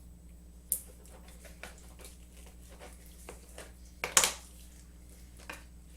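Raw chicken breast being cut down the center on a cutting board: scattered light clicks and taps of the blade and handling, with one louder knock and brief scrape about four seconds in.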